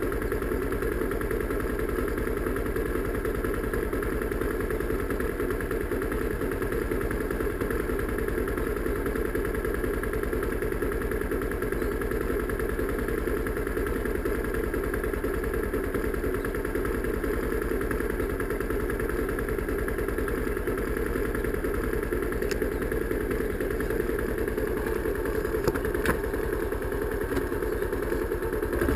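A 250 cc Bashan Storm's engine idling steadily, with no revving.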